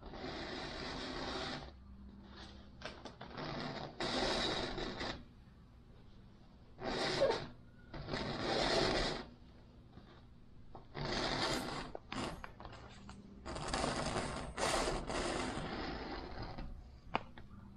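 Rib-stitching cord being pulled hand over hand through the punched holes in an aircraft wing's fabric covering. It comes as a series of rasping strokes, each about a second long, with short pauses between.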